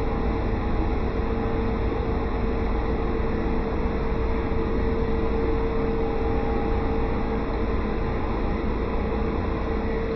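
Pool equipment machinery running with a steady hum and a constant mid-pitched tone, unchanging throughout.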